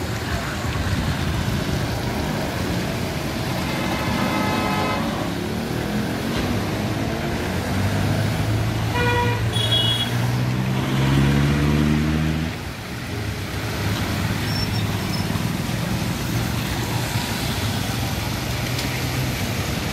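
Street traffic with vehicle engines running steadily. A horn sounds briefly about four seconds in and again about nine seconds in. A vehicle's engine revs up, rising in pitch, from about eight seconds in until it drops away around twelve seconds.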